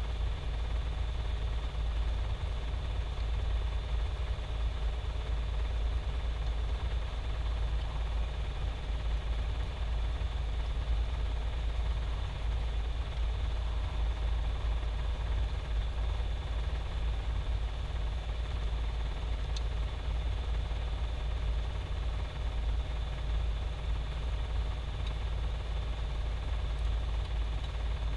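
A steady low machine hum with a faint, steady high whine above it, and a single faint click about twenty seconds in.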